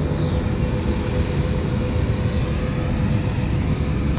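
Jet airliner's engines running on the ramp: a steady rumble and hiss with a thin steady whine-tone that fades out about three seconds in.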